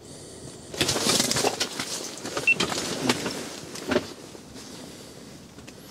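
Handling noise from an ice angler jigging a lure: rustling of his jacket with clicks from the rod and reel, busiest for about three seconds and then dying down.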